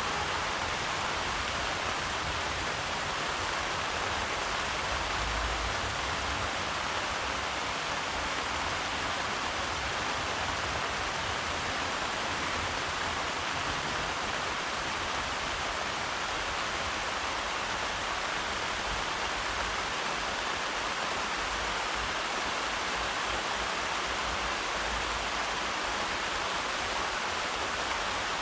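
Steady rain falling: an even, unbroken hiss with no separate drops, thunder or changes standing out.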